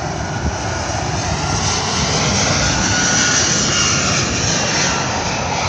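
Airplane passing overhead: steady engine noise with a faint whine that slowly shifts in pitch.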